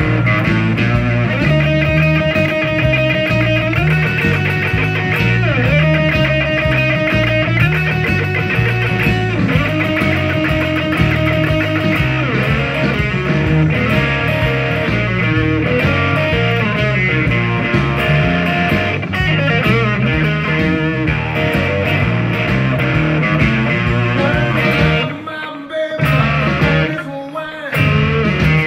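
Hollow-body electric guitar played through a Blackstar amp in a Texas blues shuffle, with held lead notes and string bends over a steady low line. The music briefly drops out twice near the end, like stop-time breaks.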